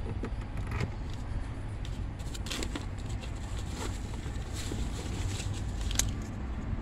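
Tools and gear being handled and rummaged through in a car's cargo area: scattered clicks, light rattles and rustles over a steady low rumble, with a sharper click about six seconds in.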